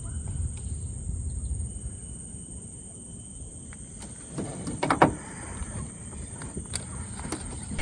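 Outdoor waterside ambience: a steady high-pitched insect drone over a low rumble, broken about four and a half seconds in by a short loud clatter of handling noise, with a couple of sharp ticks after it.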